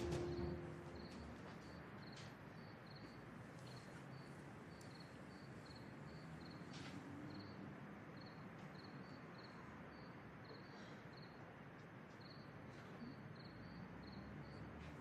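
Faint cricket chirping: short high chirps about three times a second over a low, steady hiss.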